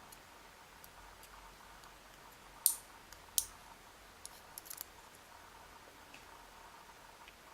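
Small, sharp clicks and ticks of lock-cylinder pins and tools being handled during disassembly of a Schlage Everest-based pin-tumbler lock. Two louder clicks come about three seconds in, then a quick run of small ticks a little before five seconds.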